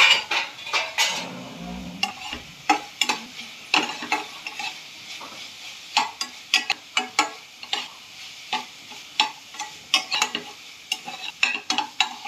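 Metal spatula stirring and scraping onion-tomato masala around a non-stick kadhai, irregular scrapes and taps one or two a second over a light sizzle, as the freshly added dry spices are roasted in the oil.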